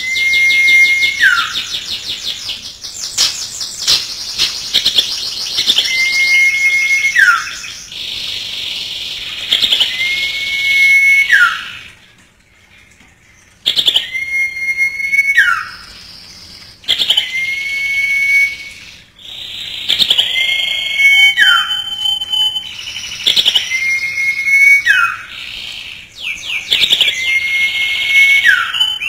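Common iora (cipoh) singing: a held whistle that ends in a quick downward slur, repeated about eight times, over busy higher chirps and trills.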